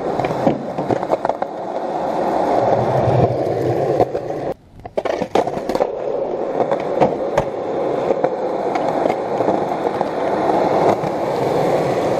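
Skateboard wheels rolling steadily over rough concrete, with scattered sharp clacks from the board. The rolling drops away briefly about four and a half seconds in.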